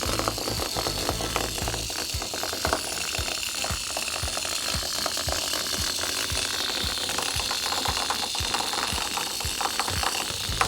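Small vibrating toys buzzing and rattling, the plastic clicking rapidly against a hard surface with a low knock about three times a second, over a steady high whine.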